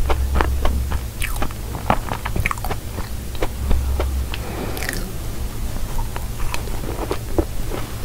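Close-miked biting and chewing of a crunchy baked cookie pie crust: many sharp, irregular crunches and crackles as it is bitten and chewed.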